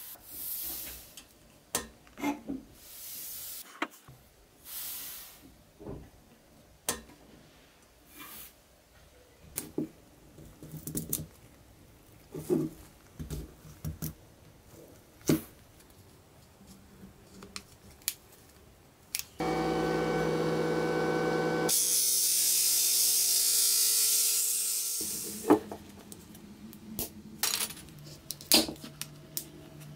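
A clear vacuum-formed plastic windshield being worked out of its epoxy resin mould by hand, scraped with a blade and pried with a thin metal rod, giving scattered sharp taps, clicks and short scrapes. About two-thirds of the way in, a steady machine hum lasts about two seconds and turns into a loud hiss for about three seconds before the small handling sounds return.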